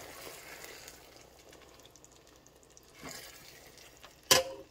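Cream sauce sizzling faintly in a cooker pot as a spoon stirs it, fading over the first couple of seconds with the heat just turned to low; a soft stir about three seconds in, then one sharp knock near the end.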